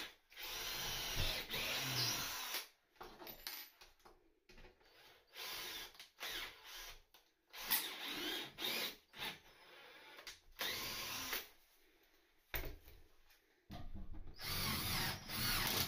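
Cordless drill run in short stop-start bursts into timber floor joists: one run of about two seconds at the start, several brief ones in the middle, and a longer run near the end.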